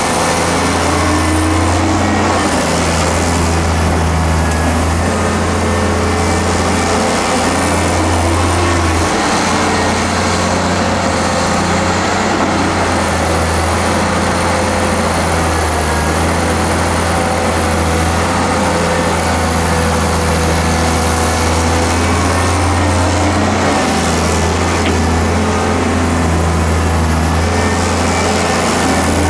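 Hyundai tracked excavator's diesel engine running steadily under load while it digs and swings sand. A tone rises and falls over the engine hum a few times as the machine works.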